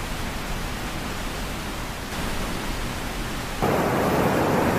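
Steady rushing of floodwater with a low rumble, jumping suddenly louder about three and a half seconds in.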